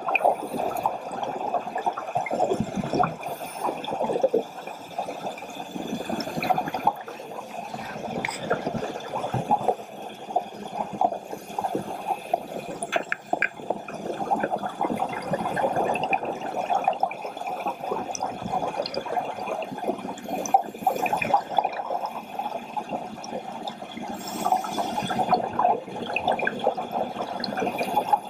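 Underwater sound through a dive camera housing: scuba divers' exhaled regulator bubbles gurgling in swells every few seconds over a constant fine crackle.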